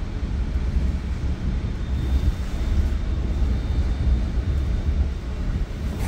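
Steady low rumble and drone of a Bombardier MultiLevel commuter train in motion, heard from inside the coach, with a faint thin high whine in the middle.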